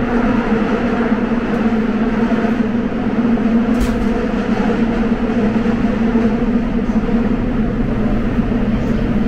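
Seoul subway train running: a steady rumble with a low, even hum.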